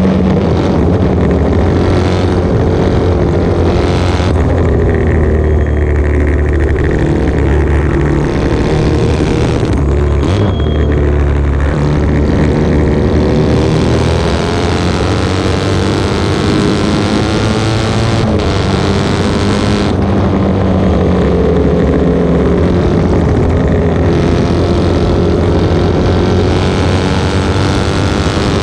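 Norton 750 Commando parallel-twin race engine at full racing revs, heard from on board with wind rushing past, its pitch rising and falling repeatedly as it accelerates and backs off through the corners.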